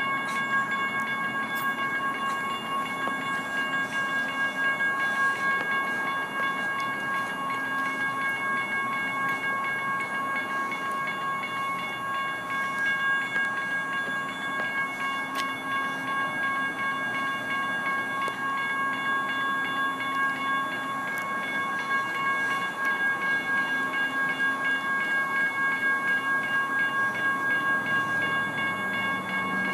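GS Type 1 electronic crossing bell at an active railroad crossing, ringing its steady high, ringing tone without a break while the signals flash and the gates are down. A continuous rushing noise runs beneath it.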